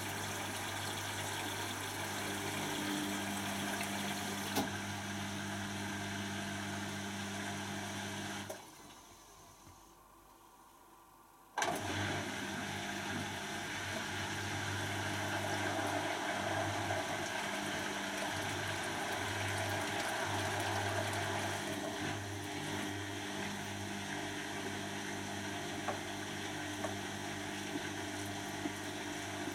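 Beko WTB741R2A washing machine draining, its pump giving a steady low hum, which stops for about three seconds. It restarts with a click about twelve seconds in as the inter spin begins, the pump hum going on under the spinning drum.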